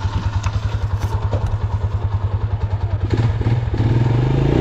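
Motorcycle engine idling with an even low putter, about twelve beats a second. About three seconds in, the revs pick up and the sound becomes louder and steadier.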